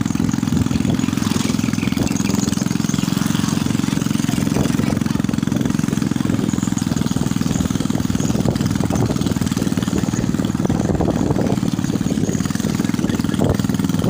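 Motorcycle engine running steadily as it is ridden, heard from the rider's seat.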